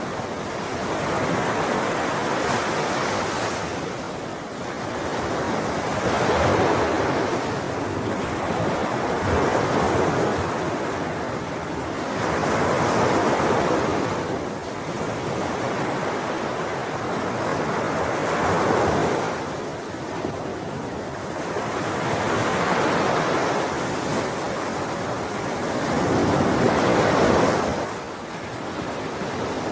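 Sea waves breaking and washing ashore. A steady rush swells and fades about every four to six seconds, some seven surges in all.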